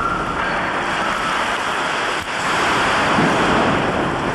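A basilica's vaults collapsing in an earthquake: a loud, continuous noise of masonry crashing down, with a brief drop about two seconds in.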